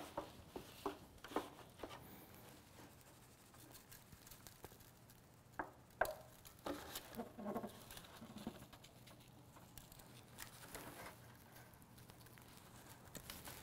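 Raw pork shoulders being turned over by gloved hands in a disposable aluminium foil pan: soft knocks of meat against the thin pan and crinkling of the foil, with two sharper knocks about halfway through. Faint patter of dry rub being shaken onto the meat follows near the end.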